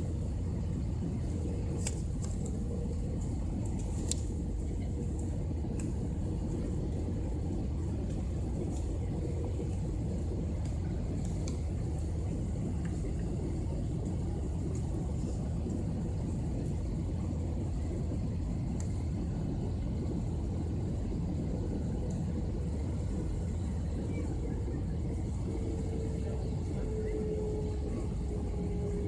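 Jet airliner cabin noise during the final approach and landing: a steady rumble of engines and rushing air with a faint steady whine that drops slightly in pitch over the last few seconds, by which point the plane is rolling on the runway.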